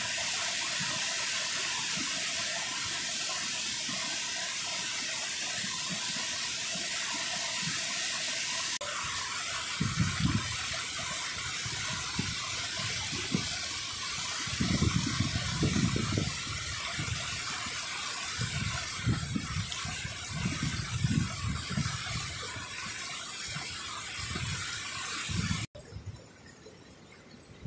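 Floodwater rushing steadily: a waterfall swollen by flooding pours over rock ledges and sheets across the ground. From about a third of the way in, irregular low rumbles of wind buffeting the microphone come and go over the rushing water. The water sound shifts abruptly twice.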